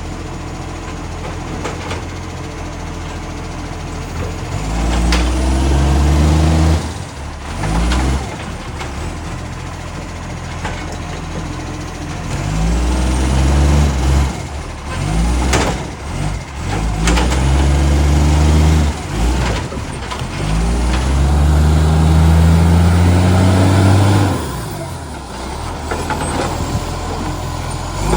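Garbage truck's diesel engine with a loud exhaust leak, idling and then revving up several times for a few seconds each, the pitch climbing as it pulls away. Two short sharp noises cut in about a third and halfway through.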